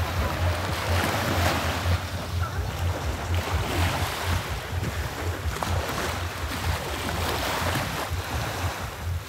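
Small sea waves washing and breaking onto a sandy beach, in rising and falling swells, with wind buffeting the microphone.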